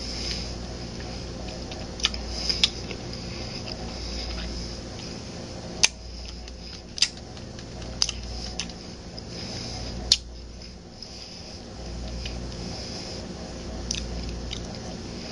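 A spoon scraping and chipping at hard, freezer-burned ice cream in a cardboard carton: a series of sharp scrapes and clicks at irregular intervals, over a steady low hum.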